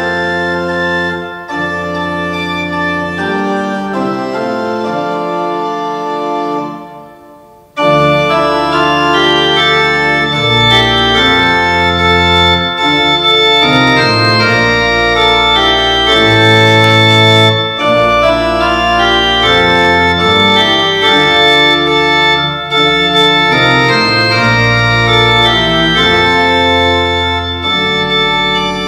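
Organ music in slow, held chords. The first passage fades away about seven seconds in, and a louder piece starts straight after and plays on.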